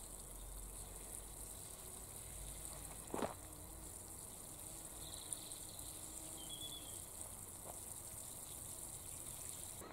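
Water sprinkling from a watering can's rose onto soil and seedlings: a faint steady hiss of spray. A brief sharp sound stands out about three seconds in.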